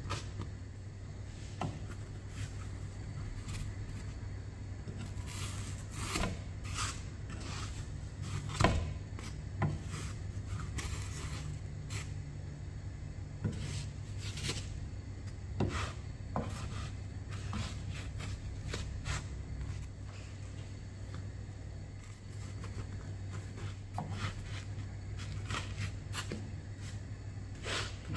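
Plastic slotted spatula and fingers turning and pressing flatbreads in a nonstick frying pan: irregular light knocks, taps and scrapes against the pan, over a steady low hum.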